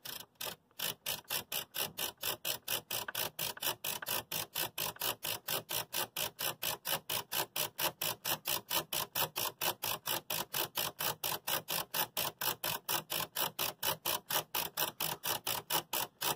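A Marantz 1122DC amplifier's selector switch being worked back and forth, clicking through its detents at about five clicks a second, to spread freshly sprayed contact cleaner over its contacts.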